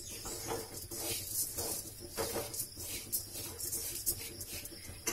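A spoon stirring and scraping dry grains around a metal kadhai, the grains rattling against the pan in a few strokes a second.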